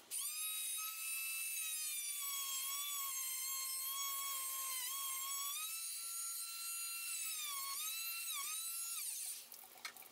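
A single high, wavering whine held for about nine seconds, with a few short downward dips in pitch near the middle and toward the end before it cuts off.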